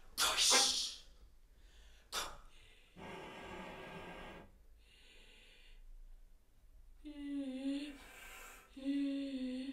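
Contemporary chamber music for voice, flute and cello played with extended techniques: sharp breathy air bursts and hissing air noise, then two held low tones with a slight waver.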